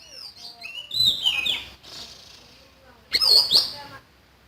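Siri-siri songbird singing: quick phrases of sliding whistled notes. One softer run comes in the first couple of seconds, and a short loud burst follows about three seconds in.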